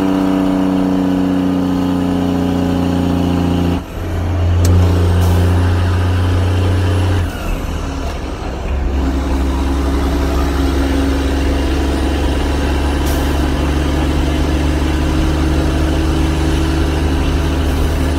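Heavy truck's engine heard from inside the cab, running as the truck drives. Its pitch eases down over the first few seconds, it changes abruptly about four seconds in and again around seven to nine seconds, then settles into a steady low drone.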